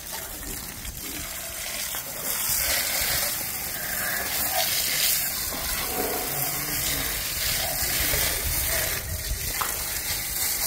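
Water spraying onto a car's open engine bay and splashing off the engine, hoses and battery, a steady rushing spray that gets louder about two seconds in.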